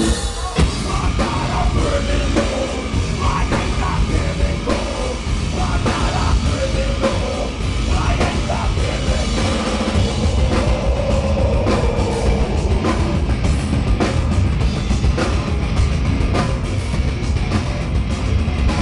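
Live heavy metal band playing at full volume: drum kit and distorted guitars.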